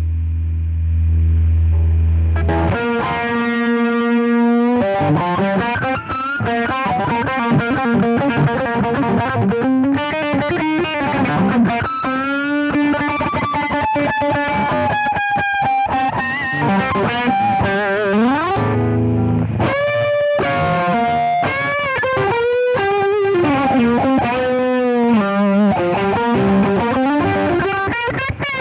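Electric guitar played through an iSet Hot Distortion pedal, a thick, saturated distorted tone. A low held note rings for the first couple of seconds, then riffs and lead lines with string bends follow.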